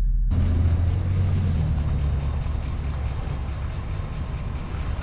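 Pickup truck engine running at idle: a low steady rumble under an even hiss of outdoor noise.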